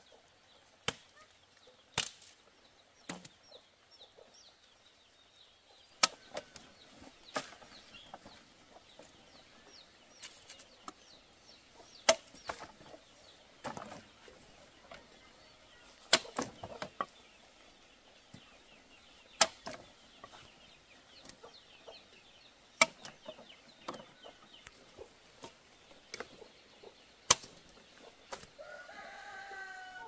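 Sharp woody clacks, one every second or two, as cut plant stems knock together while being raked and gathered into a pile. Chickens cluck faintly in the background, with a louder pitched chicken call near the end.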